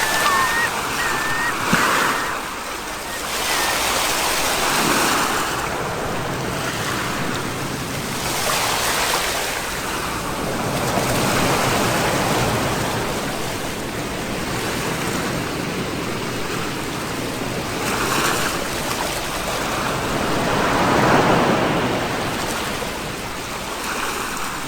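Sea waves surging and washing onto the shore, the rush swelling and fading every few seconds.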